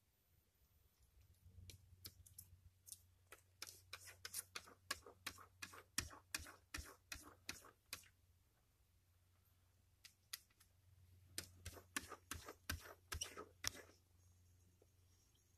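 A cat's claws tapping and clicking against window glass as it paws at it, in two quick bouts of sharp taps, about three or four a second.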